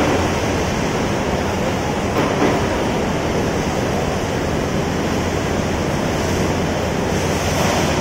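Steady rushing noise, even and unbroken, with no distinct knocks or voices.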